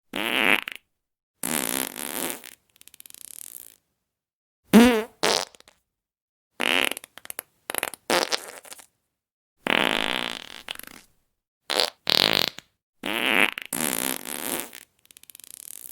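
Fart sound effects played one after another: about ten separate farts of differing length, some long and wavering in pitch, others short, with brief silences between. The loudest is a short sharp one about five seconds in.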